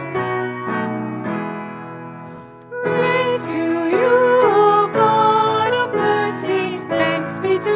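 A worship song: an acoustic guitar picks notes, and a singing voice comes in about three seconds in.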